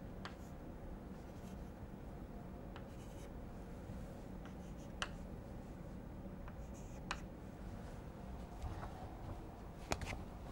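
Chalk writing on a chalkboard, quiet scratching with a few sharp taps of the chalk as numbers are marked, the loudest near the end, over a low steady room hum.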